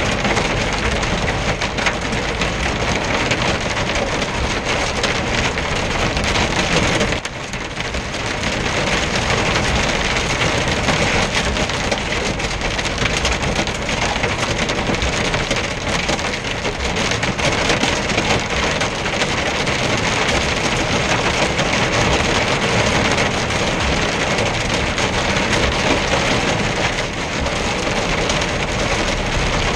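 Heavy rain and hail pelting the roof and windscreen of a moving lorry cab, heard from inside: a loud, dense clatter of impacts that eases briefly about seven seconds in.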